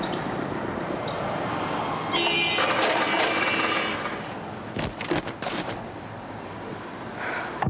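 Steady whirring noise of a ceiling fan in a hot room. A brighter tone joins in between two and four seconds in, and a few sharp clicks come about five seconds in.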